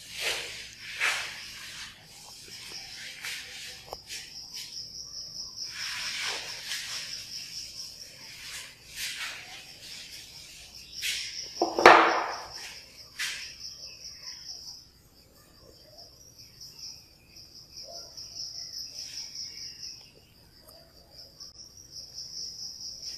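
Blackboard duster rubbing chalk off the board in a series of short wiping strokes, with a louder knock about halfway through. Behind it, insects chirr in a steady high trill.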